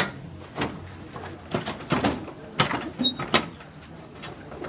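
Several sharp metallic clicks and knocks as the lock and latch on a box truck's rear cargo door are worked by hand.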